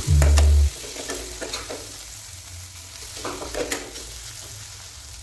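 Onion and spice masala frying in a kadhai over a gas flame: a steady sizzle, with a spatula scraping and stirring through it every now and then. A loud low rumble sits under the first moment and cuts off abruptly under a second in.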